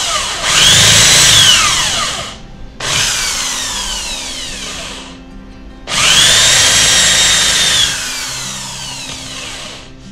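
Handheld electric drill fitted with a 25 mm Forstner bit, boring into a wooden mallet head. The drill is triggered in short bursts, about three times, each spinning up to a whine and then winding down in a falling pitch as the trigger is let go.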